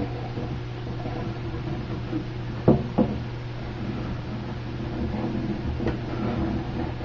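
Two short knocks about a third of a second apart, with a few fainter taps, from wooden chair parts being handled during regluing, over a steady low hum.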